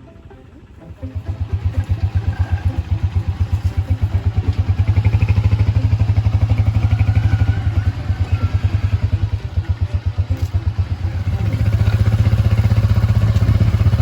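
Motorcycle engine starting up about a second in and running with a fast, even pulse. It eases off for a moment partway through, then picks up again.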